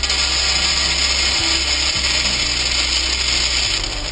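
Dry urad dal pouring from a plastic measuring cup into a steel bowl: a dense, steady stream of grains landing on the metal and on each other, easing slightly near the end.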